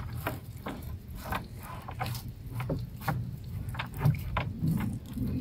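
Small boat on a river, with light, irregular knocks and scrapes against the hull over a low steady rumble.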